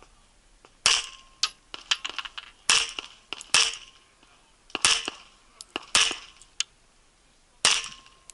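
A 1911-style pistol loaded to IPSC Classic minor power factor, fired six times at uneven intervals as the shooter moves between targets, with a pause of a second or more between some shots. Fainter cracks come between the main shots.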